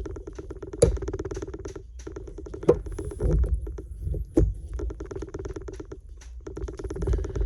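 Tools working metal on a Honda Civic front steering knuckle, prying at a stuck snap ring: scraping with sharp metallic clicks about one, three and four and a half seconds in. A steady rapid buzzing rattle runs behind, briefly stopping twice.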